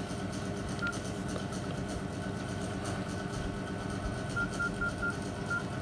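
Nokia N70 keypad tones: short, high beeps as its navigation key is pressed, one about a second in and a quick run of five near the end, over a steady low hum.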